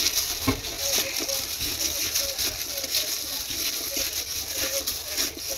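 Plastic-gloved hand squeezing and tossing wet blanched spinach in a metal bowl: a dense, irregular crinkling and squishing as the glove rubs the leaves and the bowl.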